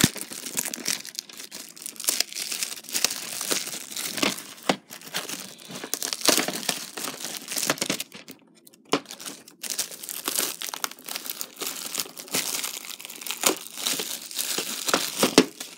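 Clear plastic shrink wrap being torn and peeled off a VHS tape case, crinkling and crackling, with a short pause a little past halfway.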